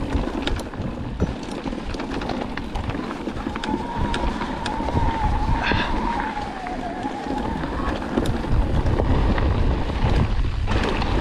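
Wind rumbling on the microphone while mountain bikes roll along a dirt trail, with tyre crunch and small clicks and rattles. A wavering whine comes in for a few seconds midway, and the rumble grows louder in the last few seconds.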